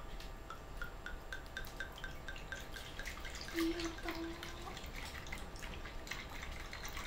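Wine poured from a bottle into a glass: a quick run of even glugs, about five a second, rising slightly in pitch, then trailing off.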